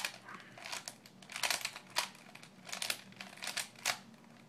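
Rubik's cube being turned by hand, its faces clicking and rattling in a series of quick turns as a memorised edge-swapping move sequence is executed.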